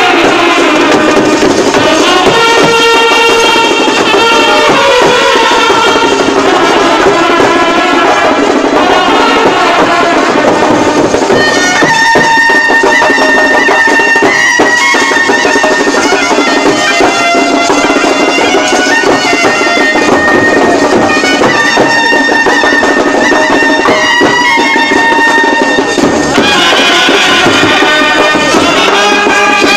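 Indian brass band playing loud: trumpets carry a melody of long held notes over steady drumming, moving into a new, higher phrase about twelve seconds in.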